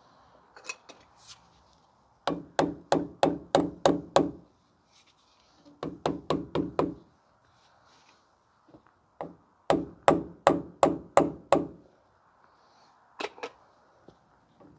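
Hammer tapping the dust cap onto the wheel hub: three quick runs of blows, about three or four a second, then two quieter taps near the end.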